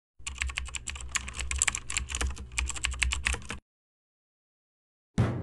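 A rapid, irregular clatter of sharp clicks, like keys being typed, with a low rumble underneath, lasting about three and a half seconds and stopping abruptly. After a short silence, a sudden low rumbling sound starts right at the end.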